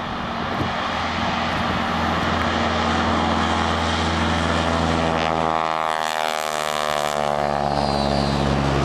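Single-engine propeller airplane's piston engine running at full takeoff power as the plane lifts off and passes close by at low height. The engine note drops in pitch as it goes past, from about six seconds in.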